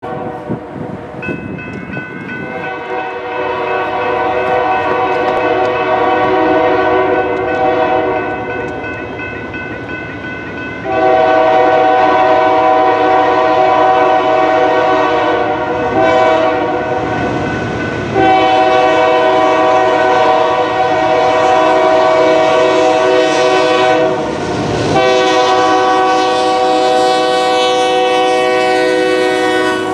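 Union Pacific locomotive air horn sounding a chord in a series of long blasts with short breaks, louder from about ten seconds in as the train nears the crossing. The crossing's electronic WCH bell rings underneath, with a distorted, bad-sounding tone.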